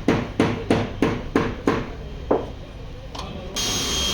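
Hammer blows on car-body sheet metal: about seven ringing strikes, some three a second, with a pause before the last one. Near the end a steady machine noise with a high whine starts up.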